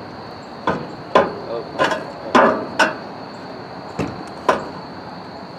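About seven sharp, irregularly spaced knocks and bangs, each with a short ring: a stuck magnet on its rope being yanked and worked against the bridge structure to free it.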